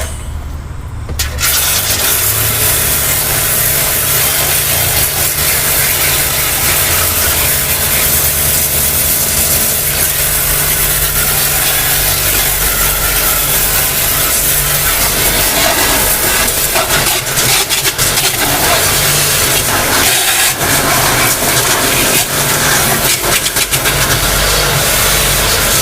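Loud, steady machine noise from a running motor, holding level with small fluctuations throughout.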